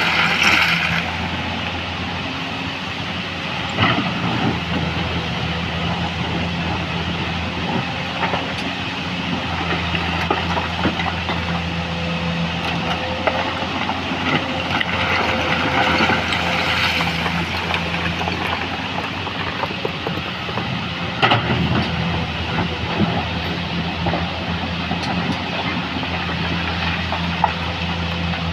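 Heavy diesel machinery running steadily at a rock crusher, with the clatter of stone and a few sharp knocks near the start, about 4 seconds in and a little past 20 seconds.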